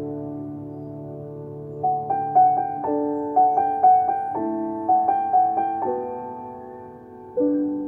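C. Bechstein grand piano being played, recorded on a phone: a held chord dies away, then a slow run of single notes and chords starts about two seconds in, and a fresh chord is struck near the end.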